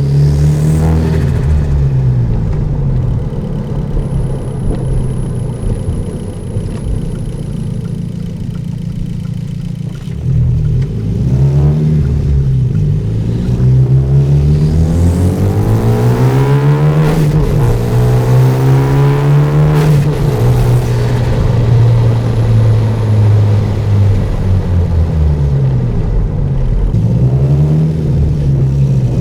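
Turbocharged Hyundai Genesis Coupe with an aftermarket free-flow exhaust, driving with a manual gearbox. For about the first ten seconds the engine runs at low, fairly steady revs. It then revs up in a long climb of about six seconds and drops sharply at a gear change about twenty seconds in, followed by shorter rises and falls in engine speed.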